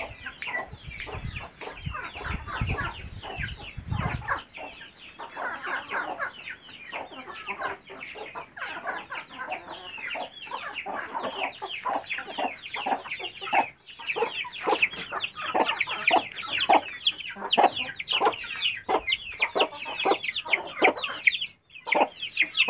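A brood of chicks peeping nonstop, a dense stream of short, high, falling peeps, with hens clucking among them. A low rumble sits under the first four seconds.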